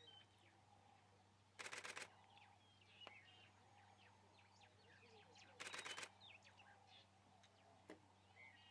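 Near silence with faint bird chirps, broken twice by a short burst of rapid clicks, about two seconds in and again about six seconds in.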